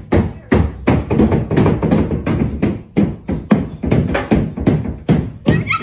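Steady, hard knocking, about three heavy thumps a second.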